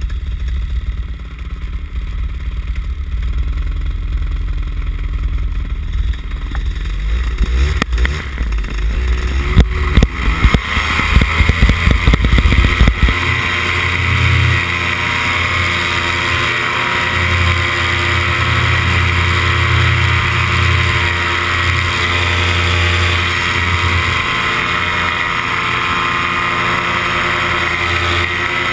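Paramotor engine and propeller: idling low at first, revved in uneven surges about eight seconds in, then held at steady high throttle from about thirteen seconds on for the takeoff run and climb.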